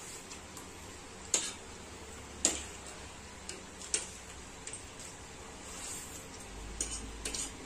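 Metal forks and spoons clinking against ceramic plates while eating noodles: scattered single sharp clicks at uneven spacing, about a second or so apart.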